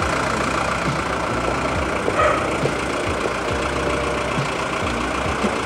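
A car engine idling steadily, with irregular low knocks through it.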